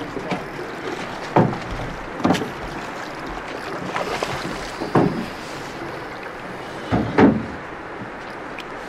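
Oars working a drift boat: about five sudden knocks of the oars, irregularly spaced, the loudest a quick pair near the end, over the steady rush of the river.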